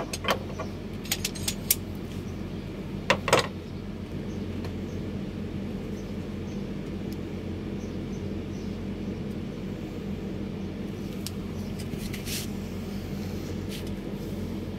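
Steady low mechanical hum throughout. Over it, in the first few seconds, a few sharp clicks and a short scrape as small wooden parts and a hand tool are handled.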